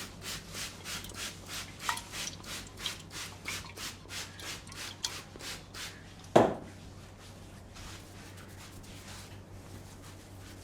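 Barber's hands rubbing briskly over the hair and scalp during an Indian head massage, in quick even strokes about four a second. About six seconds in comes one loud, sharp crack, after which the rubbing carries on more faintly.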